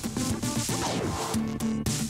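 Background music with a steady beat, and a falling pitch swoop about a second in.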